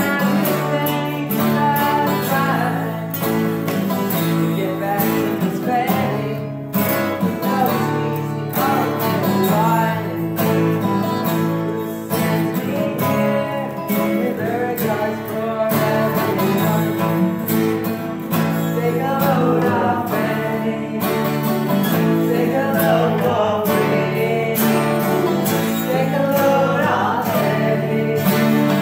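Three acoustic guitars, one of them a twelve-string, strumming chords together in a steady country-style rhythm.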